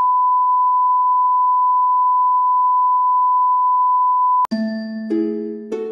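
A colour-bar test signal's steady 1 kHz reference tone, one unchanging pitch, cuts off suddenly about four and a half seconds in. Soft plucked musical notes follow, a new note every half second or so, each ringing and fading.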